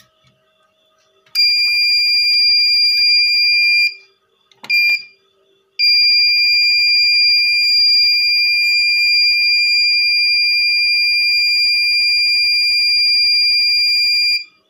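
Piezo buzzer on an inverter board sounding a steady high-pitched beep once battery power is connected: a beep of about two and a half seconds, a short blip, then a long tone of about eight and a half seconds that cuts off sharply.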